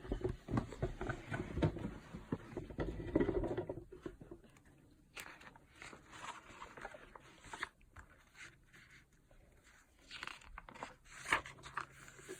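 Rustling and handling of a picture book as its cover and pages are turned: a dense scuffle of paper and hand noise for the first few seconds, then scattered soft rustles and taps.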